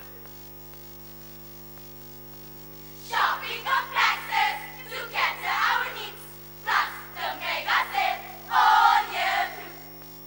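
A choral speaking group of schoolgirls voicing lines together in unison, in loud syllable-by-syllable bursts that start about three seconds in and stop shortly before the end. A steady electrical hum lies underneath and is heard alone for the first three seconds.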